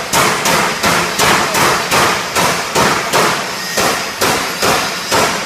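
A run of about fourteen loud, evenly spaced knocks, roughly two and a half a second, each with a short ringing tail, like hammer blows.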